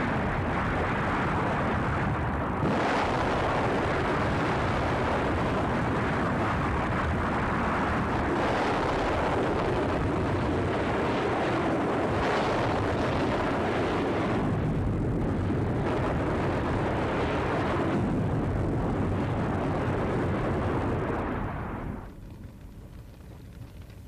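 Long continuous rumbling roar of a nuclear test explosion and its blast wave, swelling in several surges. It falls away sharply about 22 seconds in, leaving a faint hiss.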